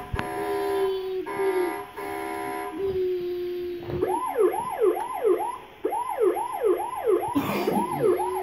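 Battery-powered electronic siren of Hess toy fire trucks: a steady tone that breaks off briefly a few times, then from about four seconds in a fast rising-and-falling siren, about three sweeps a second. A brief noise cuts across near the end.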